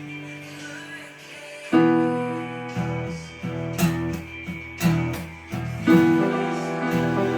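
Background music: soft instrumental chords, a held chord fading away, then new chords struck about once a second.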